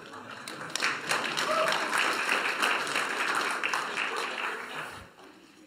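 Congregation applauding. The clapping swells in about a second in and dies away near the end.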